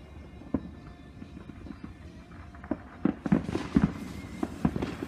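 A small ground firework sputtering and throwing sparks, with scattered sharp pops that come thick and fast from about three seconds in.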